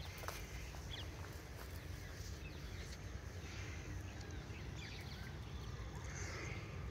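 Forest ambience: scattered faint bird chirps and a few light clicks over a steady low rumble.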